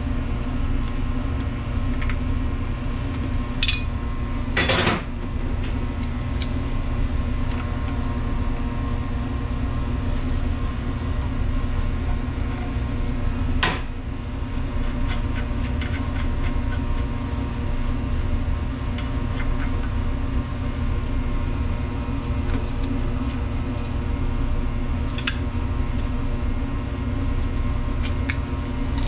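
Steady low mechanical hum with scattered metallic clinks and knocks of hand tools on a commercial dishwasher as its motor is unwired and removed, the loudest a ringing clank about five seconds in.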